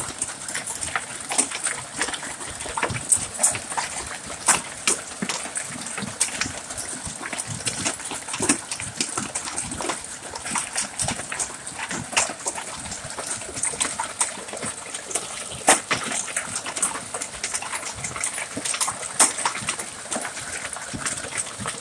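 Hailstones striking hard surfaces in an irregular clatter of sharp hits over a steady hiss.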